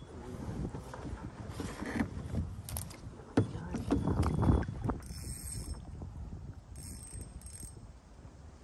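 Fishing reel being cranked to bring in a hooked fish, its gears whirring and clicking unevenly, with a sharp knock against the kayak about three and a half seconds in.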